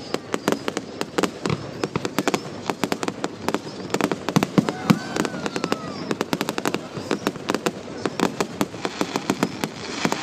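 Fireworks display: a rapid, continuous barrage of bangs and crackling from bursting aerial shells, several reports a second.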